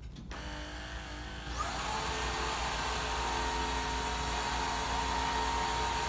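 Sharp's previous-model cordless stick vacuum running in strong mode. Its motor spins up with a quickly rising whine about a second and a half in, then runs at a steady high whine over a rushing air noise, the ordinary sound of a vacuum cleaner.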